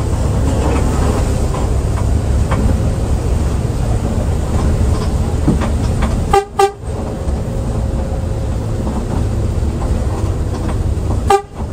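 Steady low rumble of a Mercedes-Benz OH 1521 bus's diesel engine and road noise while riding. A horn toots twice in quick succession about halfway through, and once more near the end.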